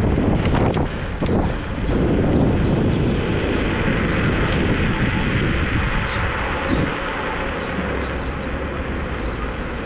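Kaabo Mantis Pro SE electric scooter riding along: a steady rush of wind and tyre noise on the microphone, with a few sharp clicks in the first two seconds.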